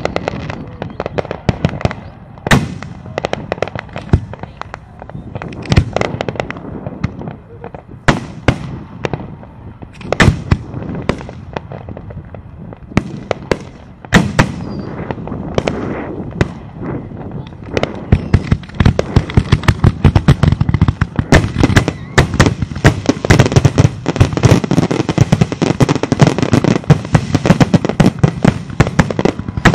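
Fireworks display: aerial shells bursting in separate booms a second or more apart, then from about eighteen seconds in a dense, rapid barrage of bangs and crackles.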